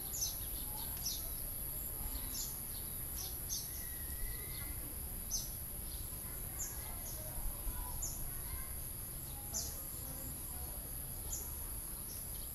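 Countryside ambience: small birds give short, falling chirps about once a second over a steady high-pitched insect drone, with a low rumble underneath.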